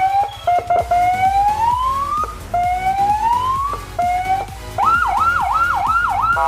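CJB200W electronic siren on a Yamaha NMAX scooter sounding its tones. It gives several slow rising wails that each break off, then about five seconds in it switches to a faster repeating rise-and-fall yelp, roughly one and a half cycles a second.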